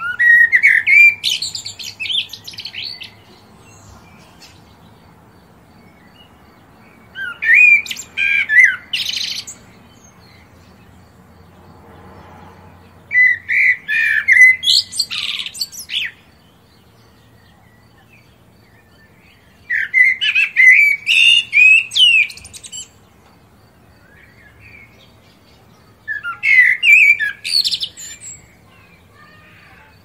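A bird singing in five separate phrases, each two to three seconds of rapid high, chirping notes, with pauses of about four seconds between them.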